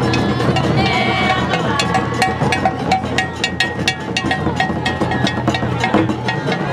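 Festival din: sharp percussion strikes, several a second, over a mix of voices and pitched sounds.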